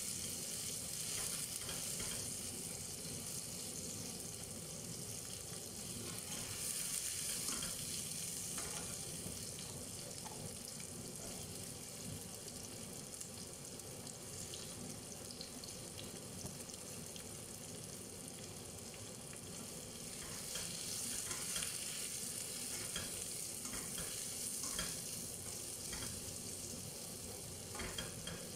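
Food sizzling as it fries in a pan on a gas hob, stirred with a plastic spatula that scrapes and clicks against the pan. The sizzle is steady; the spatula strokes come in clusters, a few about a quarter of the way in and more through the last third.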